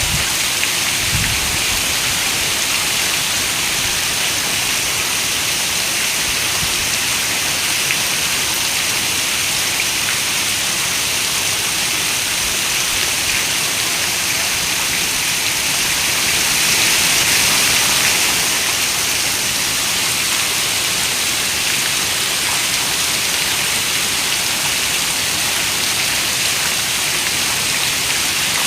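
Steady rain falling as an even hiss that swells slightly a little past the middle.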